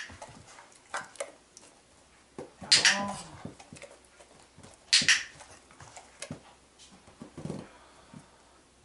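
Malinois puppy moving on and around an inflatable balance cushion: three short, sharp bursts of sound, near the start, about three seconds in and about five seconds in. The middle burst carries a brief squeak. Softer taps come in between.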